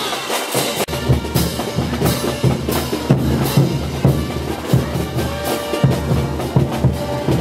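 Band playing caporales dance music: brass melody over bass drum and snare keeping a steady beat. The heavy low drums come in strongly about a second in.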